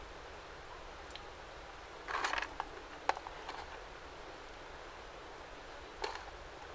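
Small handling noises of walnut kernels being threaded onto string with a needle over an aluminium tray: a short rustle about two seconds in, a sharp click about a second later, and another brief rustle near the end.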